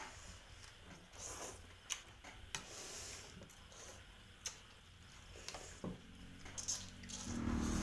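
Eating sounds: noodle soup being slurped and chewed, with scattered clicks of metal spoons and forks against ceramic bowls.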